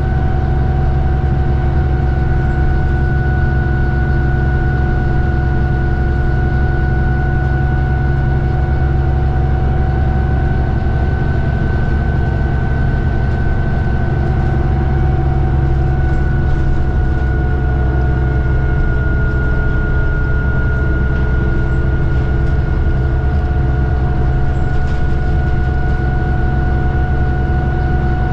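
New Flyer D40LFR diesel city bus running, heard from inside: a steady heavy low rumble with a steady whine over it that drops slightly in pitch a little past halfway.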